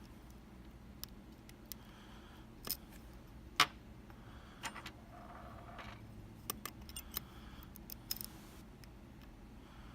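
Metal lock picks working the pins of a Kaba Quattro S lock: irregular light metallic clicks with soft scraping between them, the sharpest click about three and a half seconds in and a quick run of clicks in the second half.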